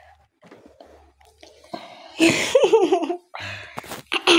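A voice makes a loud exclamation with a wavering pitch about two seconds in, and a short cry falling in pitch comes near the end, with rustling and handling knocks between.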